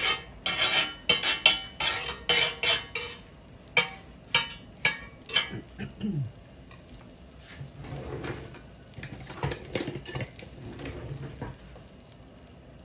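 A metal table knife scraping and clinking across the ridges of a hot cast-iron grill pan, spreading butter in quick repeated strokes for the first few seconds. A few more strokes follow, then softer scraping that dies away near the end.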